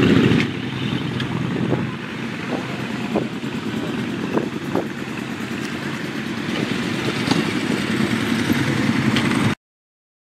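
Fire truck engine running steadily, with scattered short knocks and clatter over it. The sound cuts off suddenly near the end.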